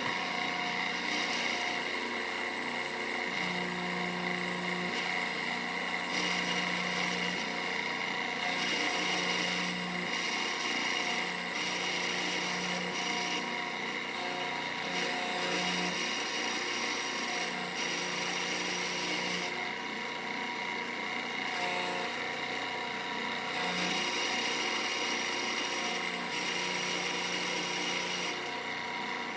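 Onefinity CNC router milling a pocket in an aluminum block, its router spindle running with a steady high whine over the hiss of the cutter in the metal. A lower hum comes and goes every second or two as the machine moves.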